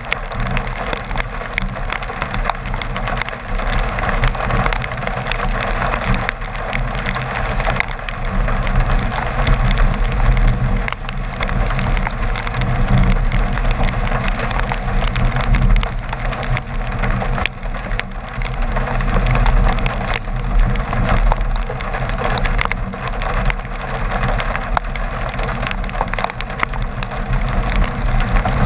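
Rain hitting a moving car's windshield and body: a dense crackle of drops over a steady low rumble of road and engine.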